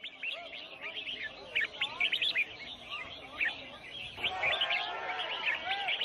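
Many caged songbirds chirping and whistling at once, a dense tangle of short, overlapping rising and falling calls.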